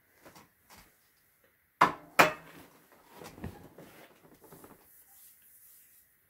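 Utensil clacking twice sharply against the meal tray about two seconds in, followed by softer clatter and eating noises as a bite of the mac and cheese is scooped up and eaten.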